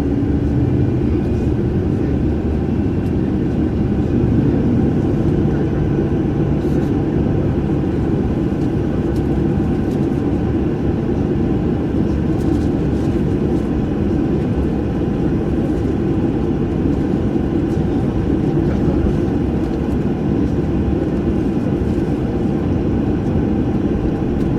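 Boeing jet airliner engines running: a steady, even low rumble that holds without rising or falling.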